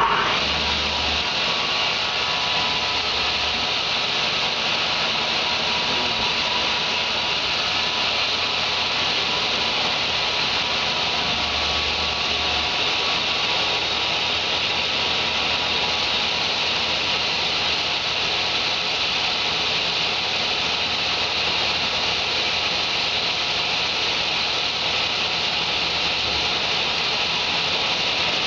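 10-inch Delta table saw running steadily while ripping a Formica-laminated MDF sheet, a loud, even whine with no break.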